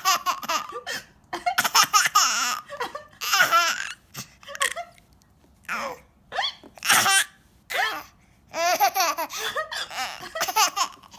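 A small child laughing in repeated fits, set off by hiccups; short hiccups come among the laughs.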